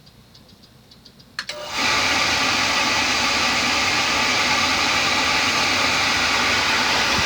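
A forced-air furnace comes on about one and a half seconds in: a click, then a loud, steady rush of blower air that drowns out the quiet ceiling fan.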